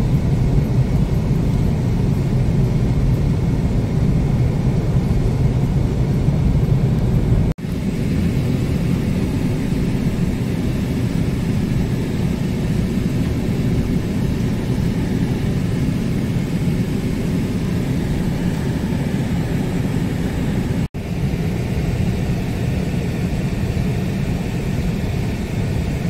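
Steady low rumble of a car driving on a highway, heard from inside the cabin: road and engine noise. It cuts out for an instant twice.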